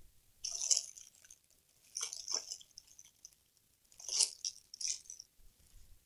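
Small repair tools being handled and rummaged through on a workbench: four short bursts of rattling handling noise.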